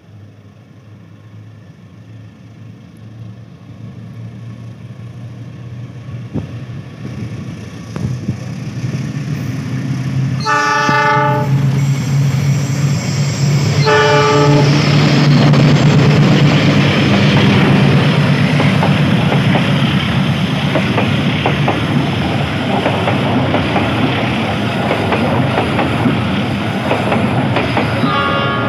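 CC 206 diesel-electric locomotive approaching and passing with its passenger coaches, growing steadily louder. Its horn sounds twice, about ten and fourteen seconds in. Wheels then clatter past, and another horn blast starts near the end.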